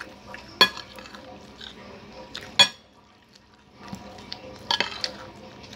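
Metal spoon clinking and scraping against a plate while eating. Two sharp clinks come about two seconds apart, then a quick cluster of clinks near the end.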